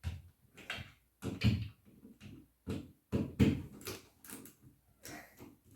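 Plastic smoke alarm unit being handled and worked loose from its mount: a string of irregular knocks and clicks, louder around the middle.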